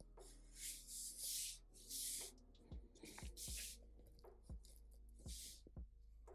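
Marker pen drawing quick strokes on paper: several short, scratchy hisses with small ticks between them. Faint background music runs underneath.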